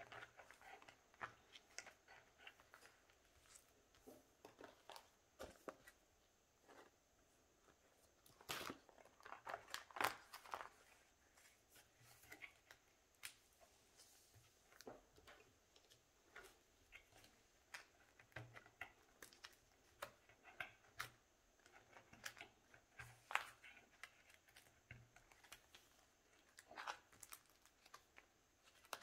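Soft, irregular rustling and crinkling of plastic binder sleeves and photocards being handled and slid in and out of the pockets, with scattered small clicks and taps. The handling is busiest around nine to ten seconds in.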